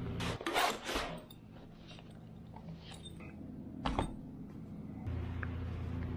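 A fabric bag rustles and zips in several quick strokes as a laptop is unpacked onto a wooden table. About four seconds in there is a single sharp knock. A steady low hum runs under the start and the end.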